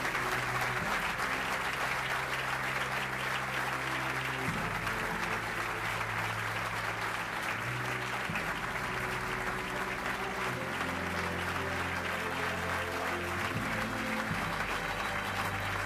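Audience applauding steadily, with instrumental music playing underneath; the music's low notes shift every few seconds.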